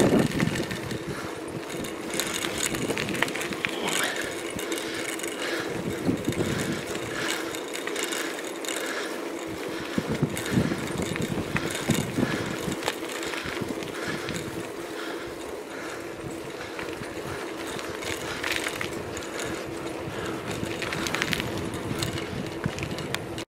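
Bicycle being ridden on a tarmac lane: a steady tyre and drivetrain hum, with scattered rattles and clicks from the bike over the road surface.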